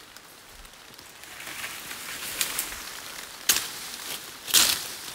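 Footsteps pushing through wet forest undergrowth, with leaves swishing against the body at about one step a second, the strokes growing louder near the end, over a steady hiss of rain.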